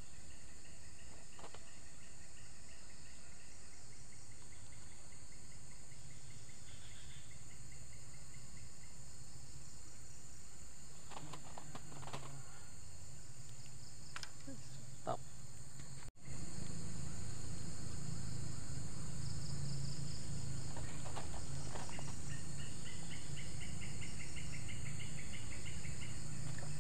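Insects shrilling with a steady high-pitched drone, and a rapid pulsed trill coming and going over it. The sound cuts out for an instant about sixteen seconds in, and after that a low hum underneath is louder.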